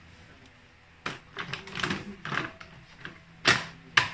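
Hands working on scooter parts at the rear wheel: a run of short scraping and clicking sounds, then two sharp knocks about half a second apart near the end.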